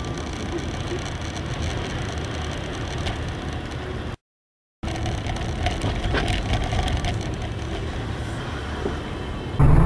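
Car interior road and engine noise picked up by a dashcam while driving on a slushy road: a steady low rumble with a few faint knocks and rattles. The sound drops out completely for about half a second a little under halfway through, and a louder vehicle rumble cuts in near the end.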